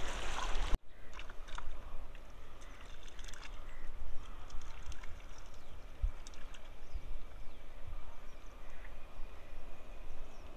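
Wind rumbling on the microphone over small water sounds lapping against shoreline rocks, with scattered faint clicks.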